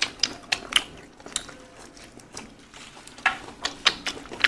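Scattered light clicks and taps as food and fingers are dipped into a small bowl of chili salt at the table.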